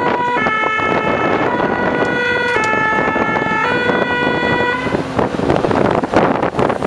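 Fire engine's two-tone siren sounding four alternating notes, about one a second, then cutting off about two-thirds of the way through. Wind rush and road noise from the moving truck run underneath.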